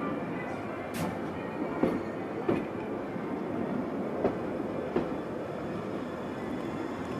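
London Underground 1983 Tube Stock train running: a steady rumble with sharp clicks from the wheels on the track, several times at uneven spacing.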